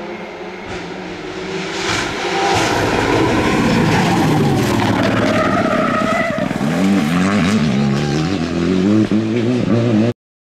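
Rally car engine, an Abarth 124 Rally, approaching and growing louder, then revving through a hairpin while the tyres squeal as the car slides. It then accelerates away with the revs rising and falling over and over. The sound cuts off abruptly near the end.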